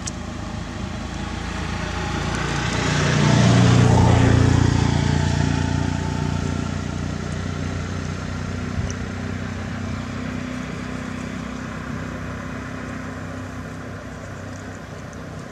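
A motor vehicle's engine passing close by, growing louder to its peak about four seconds in, then fading back to a steady engine hum.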